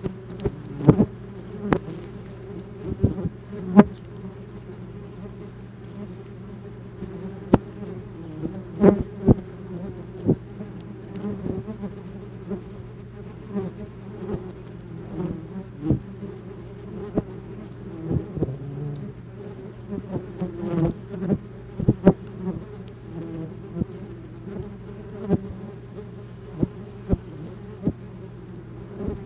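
Wasps buzzing around a nest close to the microphone, with frequent sharp taps as they bump against the camera housing.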